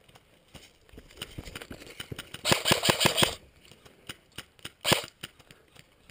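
Airsoft gunfire: a rapid burst of evenly spaced shots lasting under a second, then one louder single shot about two seconds later, with scattered fainter shots of other players' fire.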